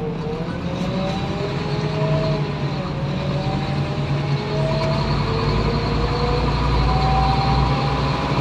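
Scania OmniCity bus heard from inside, under way: a steady low engine drone with a ZF automatic gearbox whine that glides up and down in pitch several times as the bus changes speed. The low rumble grows stronger about halfway through.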